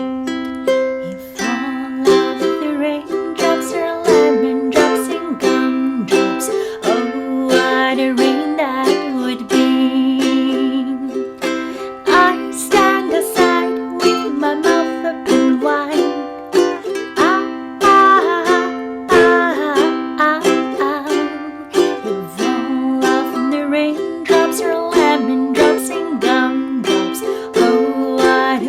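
Ukulele playing a simple children's song arrangement, with rhythmic strummed chords and picked melody notes throughout.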